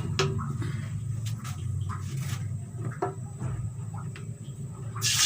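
Scattered light clicks and knocks of kitchen utensils over a steady low hum while cooking oil heats in a pan. A loud, steady hiss starts near the end.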